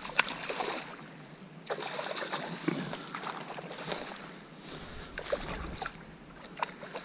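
A small hooked fish being reeled in and landed: water splashing in swells, with scattered sharp clicks and rustling from the rod, reel and handling.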